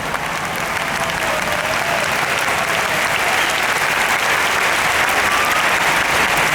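Large crowd applauding steadily, a dense clatter of many hands, with a few voices calling out faintly over it.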